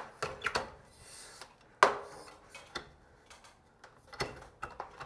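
Irregular clicks, knocks and rattles of an old fluorescent ceiling light fixture and its tubes being handled and worked loose by hand, the loudest knock about two seconds in.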